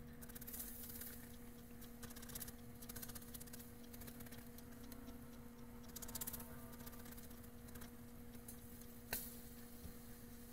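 Garlic clove rubbed on a flat metal rasp grater: faint, irregular bouts of rasping strokes, with a single sharp click about nine seconds in. A faint steady hum runs underneath.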